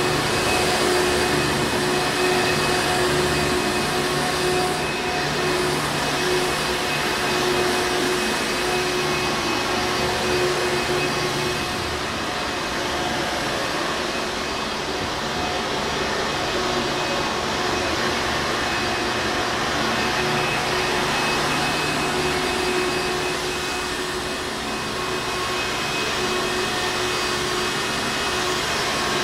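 Hoover Encore Supreme upright vacuum cleaner running steadily: a constant rush of air with a steady hum.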